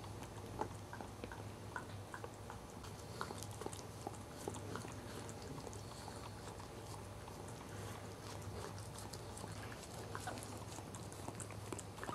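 Cairn Terrier mother licking her newborn puppy clean, a faint run of small wet licking and smacking clicks over a low steady hum.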